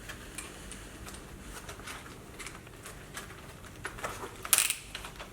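Scattered light clicks and taps from handling a cordless hammer drill as it is switched over from hammer drilling to screw-driving, with one louder sharp click about four and a half seconds in. The motor is not running.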